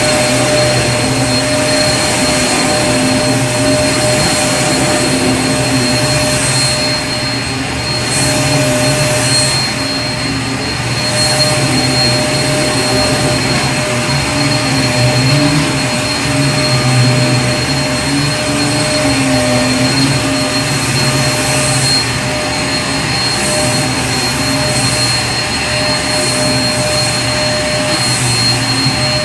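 Vacuum cleaner running steadily: a constant motor whine over a broad hiss of rushing air, with its low hum wavering slightly.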